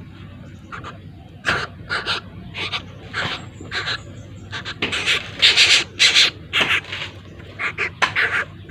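Young bird of prey chick giving repeated short, raspy, hissing begging calls at irregular intervals while being hand-fed, loudest a little past the middle.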